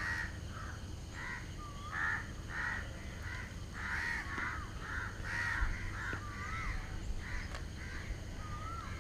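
Crows cawing repeatedly, many short calls overlapping, with a few short whistled bird notes among them over a steady low background hum.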